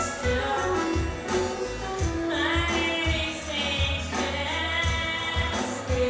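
Live band playing a song: a woman singing over acoustic and electric guitar, drums and a tambourine keeping a steady beat.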